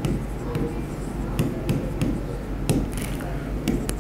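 Marker pen writing on a whiteboard: several sharp taps and short strokes as letters are written, over a steady low hum.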